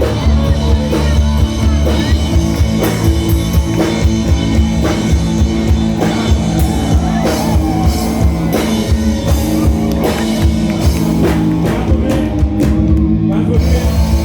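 Live rock band playing amplified: drum kit beating steadily under electric guitars and bass, with some singing.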